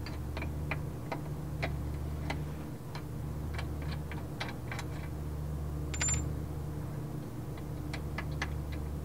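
Light, irregular metallic ticks, about one or two a second, from an 18 mm wrench working the control arm's inner ball-joint bolt loose from the subframe, over a steady low hum.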